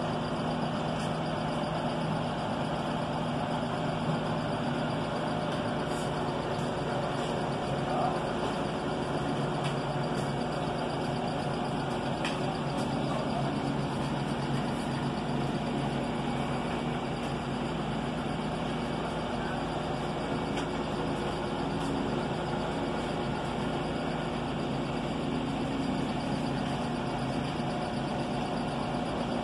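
Road-work vehicle's engine running steadily, a low even hum.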